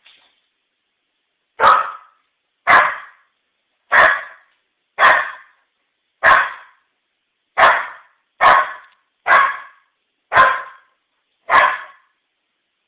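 Old English Sheepdog puppy giving ten single, evenly spaced barks, about one a second, with quiet between: alarm barking at an unfamiliar stem of lilies brought indoors.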